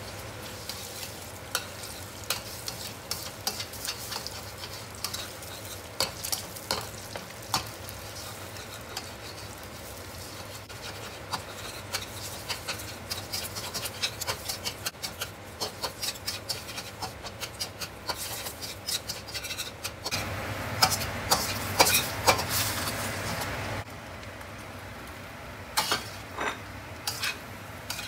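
Metal spatula scraping and tapping against a stainless steel wok as eggs are stir-fried and scrambled, over a steady sizzle of hot oil. The clicks and scrapes come irregularly, with a louder, busier stretch of clatter and sizzling about twenty seconds in.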